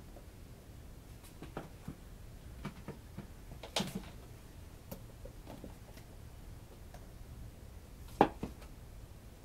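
Stiff flashcards being handled in a card holder: scattered light clicks and rustles, with a louder knock just before four seconds, as a card is pulled out, and a sharper, louder knock about eight seconds in.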